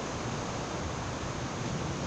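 Steady sea surf washing against jetty rocks, mixed with wind, with a low uneven rumble of wind on the microphone.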